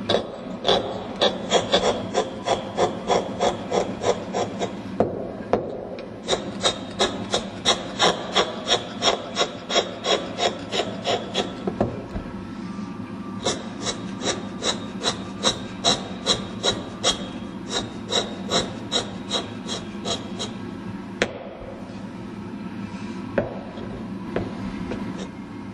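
Long-handled chisel carving an Ogatsu slate inkstone: quick scraping strokes, about three a second, in runs of several seconds with short pauses, thinning out near the end.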